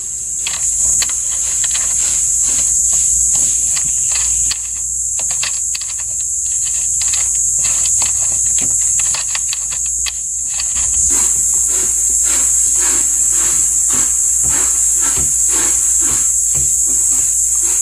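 Insects chirping in a steady, high chorus, with many quick clicks through it.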